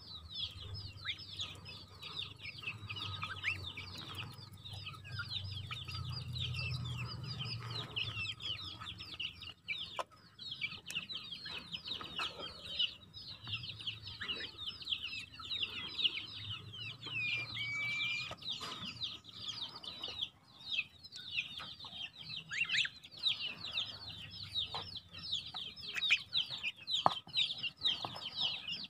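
Goslings about six weeks old peeping nonstop in rapid, high-pitched falling notes while they feed. Scattered sharp clicks come from their bills pecking in the feed and against a metal basin.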